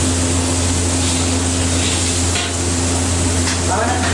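Gas wok burner running with a steady hiss and low rumble while egg fries in the hot wok, with a few light scrapes of a metal spatula against the wok.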